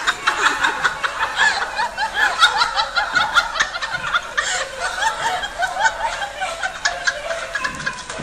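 High-pitched squeaky cries from several young animals: short calls that rise and fall, overlapping several times a second.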